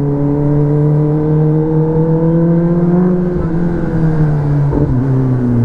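Kawasaki Ninja ZX-10R's inline-four engine heard from the rider's seat, running steadily in traffic. Its note climbs slowly as the bike gains speed, then falls away from about three seconds in as the bike slows.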